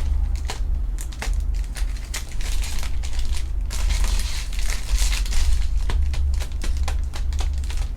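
Plastic wrapping on trading-card packaging crinkling and being handled, in quick irregular crackles and clicks, over a steady low hum.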